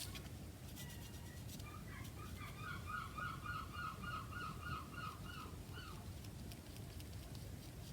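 A bird calling: a quick run of about a dozen short, evenly repeated notes over a few seconds, faint against a low steady background hum.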